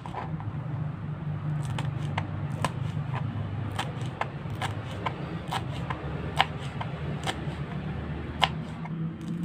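Kitchen knife slicing green chillies on a plastic cutting board: short, sharp taps of the blade reaching the board, about two a second, at an uneven pace.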